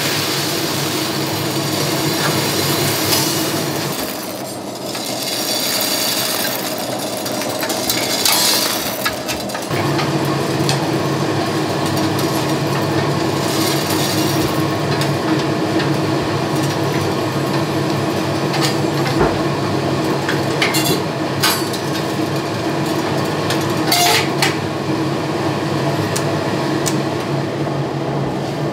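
Coffee roaster's cooling tray running, its stirring arms turning over a perforated steel tray with a steady motor and fan hum. Roasted beans rattle and scrape across the tray as they are swept out. The rattle thins after about ten seconds as the tray empties, leaving the hum with scattered clicks.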